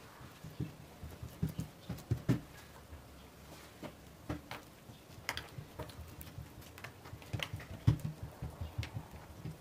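Hands working a thin, oiled sheet of flour-and-water dough on a wooden table: irregular soft pats and taps with small sticky clicks, a few sharper knocks among them.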